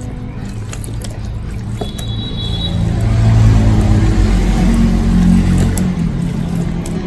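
Water spraying from a handheld shower head onto wet hair at a salon basin, under a low engine rumble that swells about three seconds in and fades near the end.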